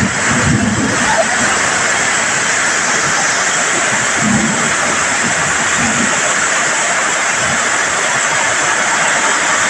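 Heavy monsoon rain and muddy runoff rushing down a hillside channel, carrying landslide debris: a loud, steady rushing noise.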